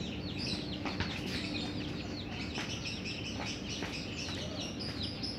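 Small birds chirping continuously with chickens clucking, and a few light knocks as a ball is kicked on bare dirt.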